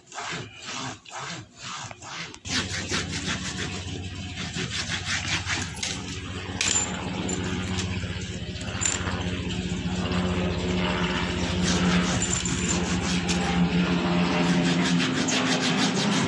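Flannel cloth rubbed fast back and forth along a coin-metal chain on a bench to buff it to a shine: separate strokes about two or three a second at first, then from about two and a half seconds in a quicker, unbroken rasping rub. A low steady hum runs under the faster rubbing.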